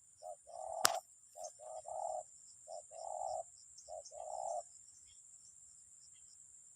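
A dove cooing in four short phrases, each a brief note followed by a longer one. A steady high-pitched hiss runs underneath, and there is a sharp click just under a second in.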